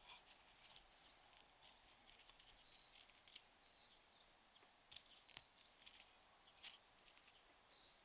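Near silence with faint, scattered clicks and ticks from an aluminium camping mug and its folding wire handle being handled; a few clicks stand out about halfway through. A couple of faint high chirps are also heard.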